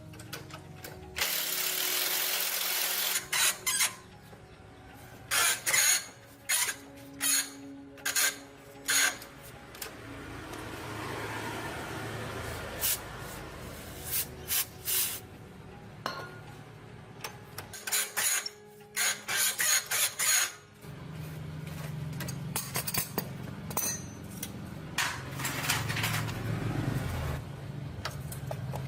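Workshop tool work: a hissing burst about a second in, then many sharp metal knocks and clanks in clusters, and a low steady motor hum through the last third.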